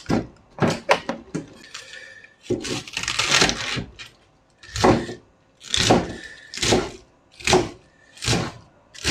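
Cabbage handled with a few knocks on a wooden cutting board, then a crinkly rustle of cling film wrapped around the leftover cabbage. From about halfway on, a kitchen knife slices through cabbage leaves onto the wooden board, a crunch and knock about every 0.8 seconds.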